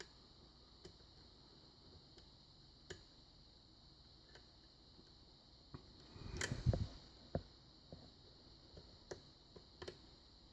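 Lock pick tapping and scraping the pins inside a Sargent six-pin lock cylinder during single-pin picking: scattered small ticks, with a louder rattling cluster of clicks about six and a half seconds in.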